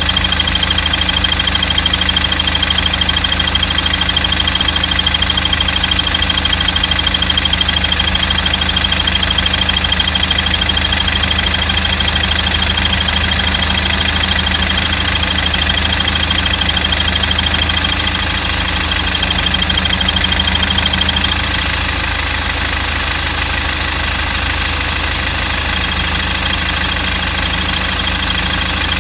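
Car engine idling with a steady high-pitched squeal from the engine bay. The squeal drops away about two-thirds of the way through and comes back faintly near the end.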